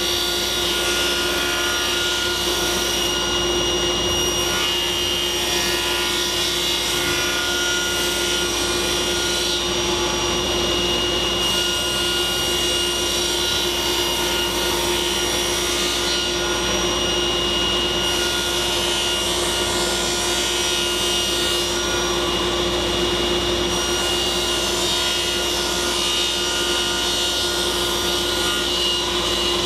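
Table saw running with a steady whine, ripping a thin strip off a cedar board.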